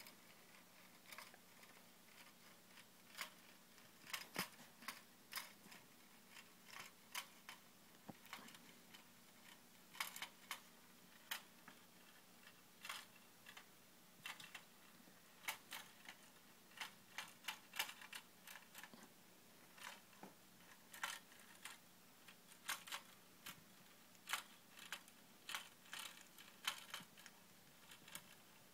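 Coil-type putt-putt steam engine of a toy bottle boat running, its pulsing copper coil tapping against an aluminium can. The result is sharp, irregular ticks, often in quick little clusters.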